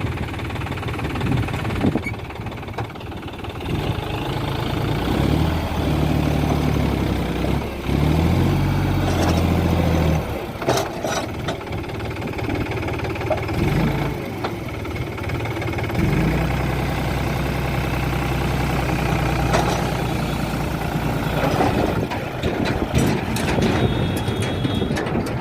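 Diesel engine of a backhoe loader at work, revving up and settling back several times, with scattered metal knocks and clanks from the machine.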